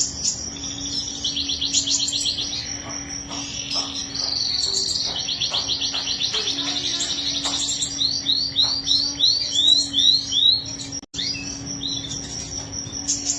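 Domestic canary singing long, fast rolling trills, then a run of separate sweeping notes at about three a second; the song cuts out for an instant near the end, over a steady low hum.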